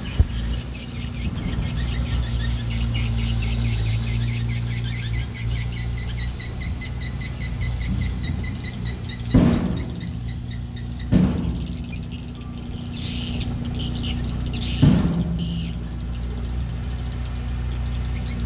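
Heavy construction machine's engine running steadily, with a rhythmic high squeaking over the first half and three loud metal clanks a couple of seconds apart in the second half.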